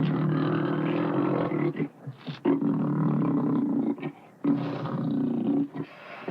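An animal calling in three long, loud, roar-like calls, each one to two and a half seconds long, separated by short breaks.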